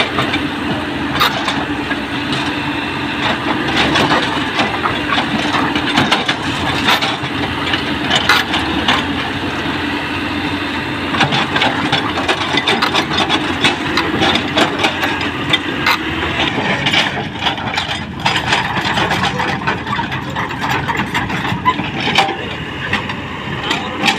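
Excavator's diesel engine running steadily under work, with frequent short clanks and rattles from the machine as it digs and moves soil.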